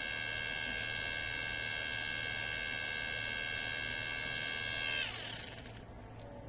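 Small motor-driven civil-defence siren sounding a steady high tone, then switched off about five seconds in, its pitch falling away as the rotor winds down.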